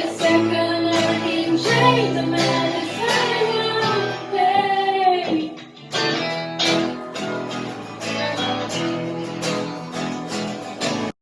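A song with a high voice singing over plucked acoustic guitar; the singing stops about halfway through, the guitar carries on, and the music cuts off suddenly near the end.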